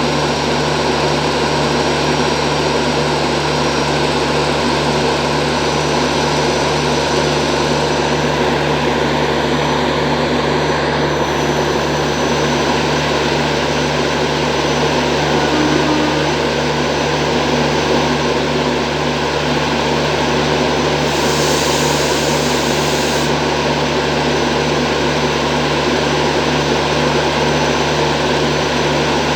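WAG-9 electric locomotive's onboard machinery running with a steady, loud drone, the sound that is called its generator sound. A short hiss joins in about two-thirds of the way through.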